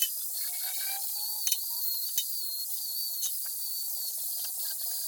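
Electric welding arc hissing steadily, with irregular sharp crackles and pops.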